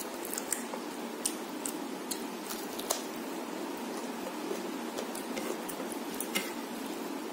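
Sparse, soft wet clicks and smacks of someone eating rice and chicken curry by hand: chewing, licking fingers and gathering the last rice from a plate with the fingers. These sit over a steady low background hiss.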